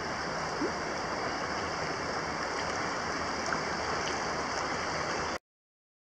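Shallow river water rushing and gurgling over stones close to the microphone, a steady wash. It cuts off abruptly about five seconds in.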